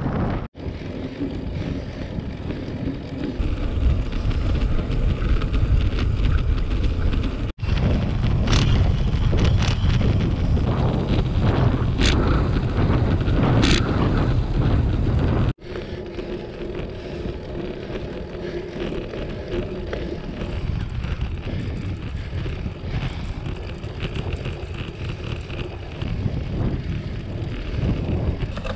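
Wind buffeting the microphone of a GoPro on a moving road bicycle: a steady, noisy rumble, heaviest in the middle stretch, with a few sharp clicks. It is broken by abrupt cuts about half a second, 7.5 seconds and 15.5 seconds in.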